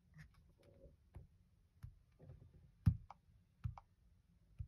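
Fingertips tapping on smartphone touchscreens: a scattering of light, sharp taps and clicks, the loudest about three seconds in.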